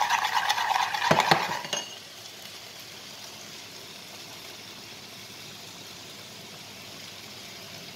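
A metal spoon stirring a liquid egg and sour cream filling in a glass bowl, scraping rapidly for about two seconds and ending with a single ringing clink against the glass. After that comes a steady soft sizzle of onions sautéing in a pan.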